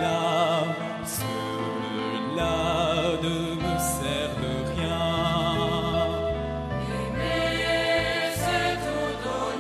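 Choir singing a slow French hymn, held notes with vibrato over a low accompaniment that changes in steps.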